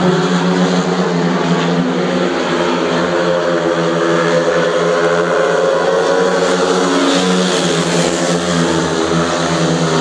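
Several speedway motorcycles racing around the track, their 500 cc single-cylinder methanol engines running together as a loud, steady mix of overlapping engine pitches that rise and fall slightly.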